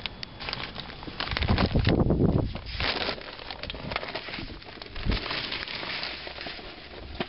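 Burning mesquite charcoal crackling and popping as the glowing coals are stirred with a stick, throwing up sparks. A loud rushing noise lasts about a second and a half, starting a little over a second in.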